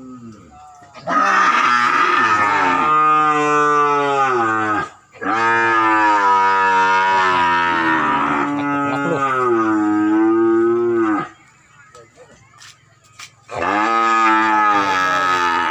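Cattle mooing loudly in long, drawn-out calls. Two long moos come back to back, then after a short pause a third begins near the end.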